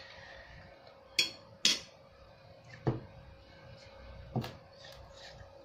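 A few short, sharp clicks and knocks, four clear ones spread across a few seconds: chopsticks knocking against a bowl of instant noodles being stirred, and a plastic sauce bottle being lifted and set down on the table.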